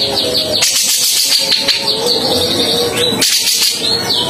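Cucak jenggot (grey-cheeked bulbul) singing a harsh, rough chatter: a fast run of rattling, rasping notes. A short rising whistle comes about three seconds in and a falling one near the end.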